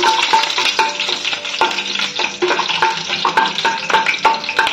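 Whole spices (dried red chilli, bay leaf, cinnamon, cloves, cardamom) sizzling in hot oil in a kadai, stirred with a metal spatula that clicks and scrapes against the pan again and again. This is the tempering stage, the spices being lightly fried before garlic paste goes in.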